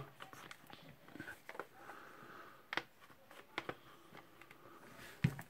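Faint clicks and light knocks of a rotary hammer's plastic handle housing halves being fitted and pressed together by gloved hands. A few sharper clicks come about three, three and a half and five seconds in.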